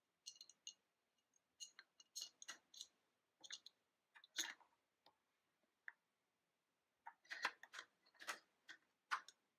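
Faint, scattered clicks and taps of small plastic toy pieces being handled and moved, coming in small clusters with a busier run near the end.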